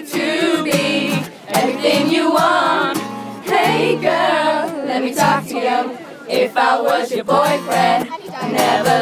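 A young man singing a pop song live to a strummed acoustic guitar, with a crowd of fans singing along.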